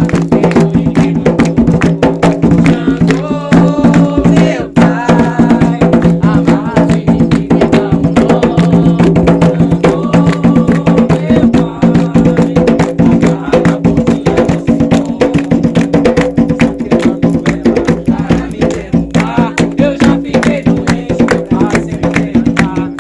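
Ceremonial drumming for a chant to Xangô: hand drums beaten in a steady, driving rhythm with a sharp wood-block-like clack, loud throughout.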